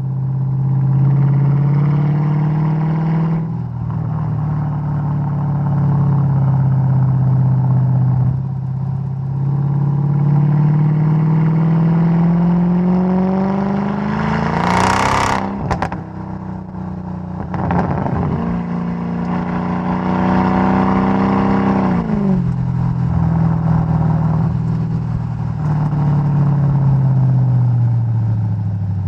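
Mercedes-Benz E 55 AMG's supercharged 5.4-litre V8 exhaust while driving, the engine note rising under throttle and dropping several times. About halfway through, a sharp crack, followed by brief crackling as the revs fall, the exhaust pops and bangs of a tuned car.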